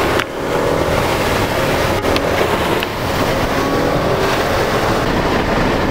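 Steady loud rushing of wind and rain around a car, with its engine running underneath; a couple of sharp clicks about two and three seconds in.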